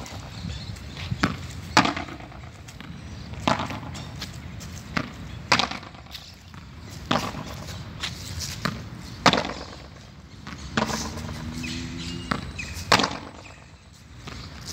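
Padel ball struck by a racket and bouncing on the concrete court and walls: sharp knocks every second or two, often two about half a second apart.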